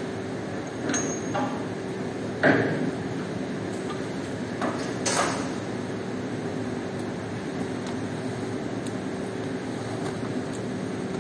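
Metal clanks and knocks as the orange lid of a carpet centrifuge drum is unlatched and swung open, the loudest about two and a half seconds in, over a steady machine hum.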